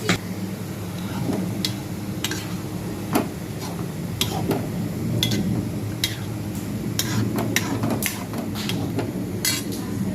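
A metal utensil knocking and scraping in a cooking pan, with irregular sharp clinks about once a second, over a steady low hum.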